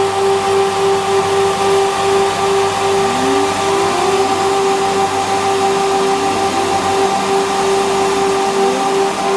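Leadermac LMC 623C four-sided wood moulder running, its 6000 rpm cutter spindles giving a loud, steady whine over a broad rushing hiss. A few faint rising tones come and go.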